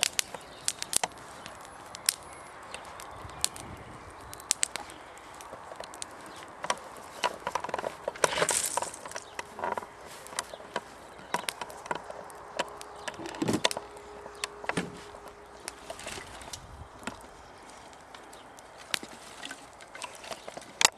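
Small open fire crackling, with irregular sharp snaps and pops.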